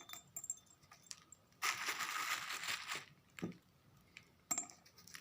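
Lumps of hardened resin being broken up by hand and dropped into a jar: scattered cracks and clicks, with a denser crunching, crumbling stretch of about a second and a half partway through.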